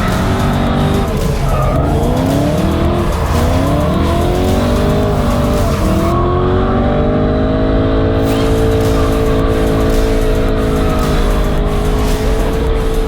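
V8 drift car engine revving hard, its pitch swinging rapidly up and down for the first few seconds, then holding a steadier high rev that slowly rises and falls.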